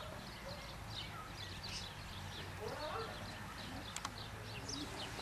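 Small birds chirping over and over in quick, high, falling notes, with a single sharp click about four seconds in.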